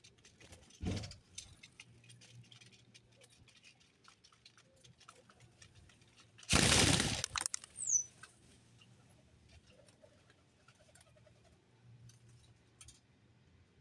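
Small birds at a feeder: faint scattered tapping and pecking, a loud rustle of about a second roughly six and a half seconds in, and one short high chirp falling in pitch just after it.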